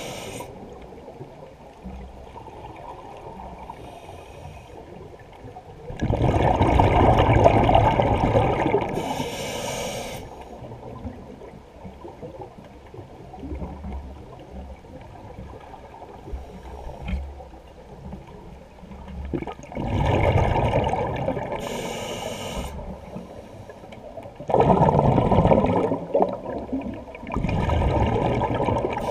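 Scuba diver breathing through a regulator underwater: several long bursts of exhaled bubbles, some followed by a short hiss of inhaling through the regulator, with quieter water noise between breaths.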